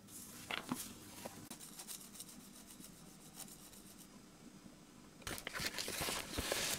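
Flour being shaken through a wire mesh sieve into a plastic bowl: a soft, gritty hiss with fine ticking. About five seconds in, a louder rustling and crinkling sets in.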